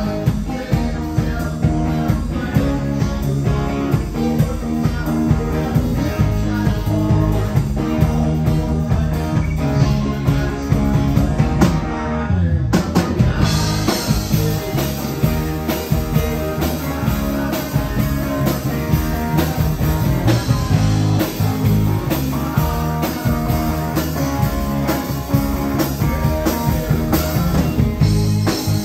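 Live rock band playing: electric guitar, bass guitar and drum kit, with a man singing lead vocals through a microphone.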